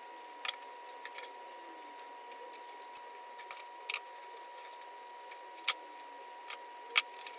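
Pruning shears snipping through pothos vine stems: about eight sharp snips at irregular intervals, the loudest two just before and after the six-second mark, over a faint steady high whine.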